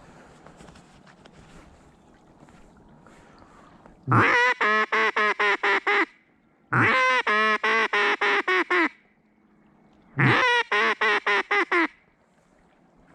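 Mallard duck calling sounded in three loud series of quacks, each a fast string of about eight to ten notes lasting some two seconds, with short pauses between the series: a hen-mallard hail call.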